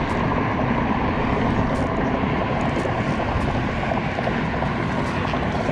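Steady, even rushing noise with a few faint ticks.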